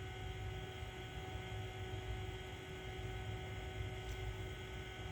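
Macintosh SE running: a steady machine hum with several held tones from its cooling fan and internal SCSI hard drive spinning, a drive that is not happy, with a faint tick about four seconds in.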